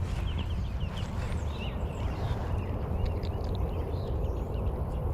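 Outdoor ambience: small birds chirping in quick short calls over a steady low rumble.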